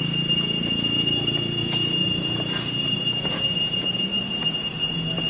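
Cicadas droning in dense tropical vegetation, a steady high-pitched whine with no break.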